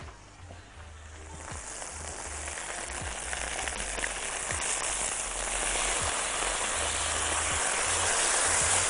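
Chicken breasts sizzling as they fry in a ridged grill pan. The sizzle swells from faint to a steady hiss over the first couple of seconds.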